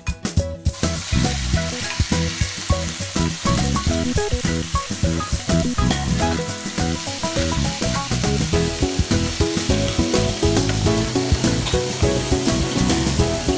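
Raw beef strips sizzling and frying in hot oil in a non-stick wok, the sizzle starting abruptly under a second in and running steadily, with stirring by a wooden spatula. Background music plays underneath.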